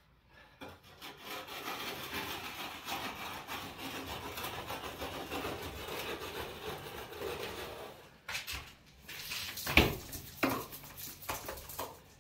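Plastering rule dragged across wet plaster on a wall, a steady scraping as the fresh coat is levelled, followed by a few sharp knocks, the loudest about ten seconds in.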